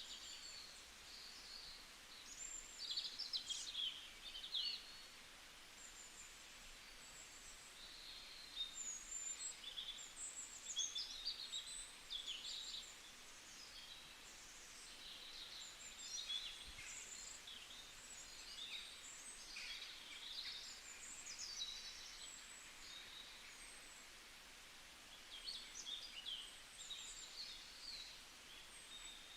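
Small songbirds chirping and trilling in quick, overlapping calls that come in clusters with short lulls, over a faint steady hiss of outdoor ambience.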